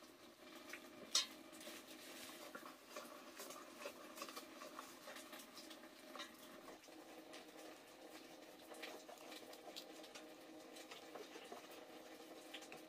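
Faint scattered crackles and ticks from a small wood fire burning under a cooking pot, with one sharper crack about a second in.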